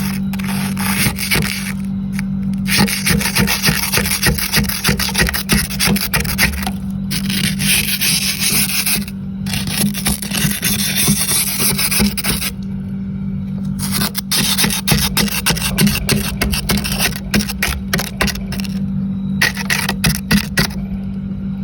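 Freezer frost being scraped off: rapid rasping strokes in runs, broken by a few short pauses, over a steady low hum.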